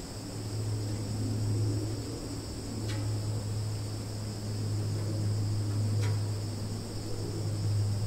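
Forest background of a steady high-pitched insect chorus, like crickets, over a steady low hum that is the loudest part. Two faint clicks come about three and six seconds in.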